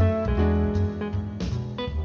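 Instrumental background music with guitar, bass and held notes.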